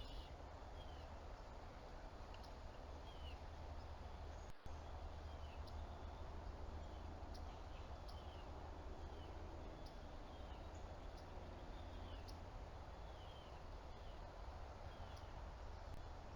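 An animal hiccuping: short, faint, high chirps that fall in pitch, repeating about once a second over a steady low hum.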